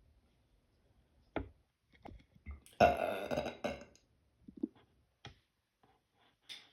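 A person burping: one long, loud burp about three seconds in, lasting about a second, with a few short, fainter throat and mouth sounds before and after it.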